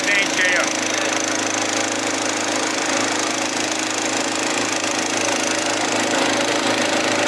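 Branco 6.5 hp single-cylinder four-stroke gasoline engine running steadily at speed, driving a small river boat.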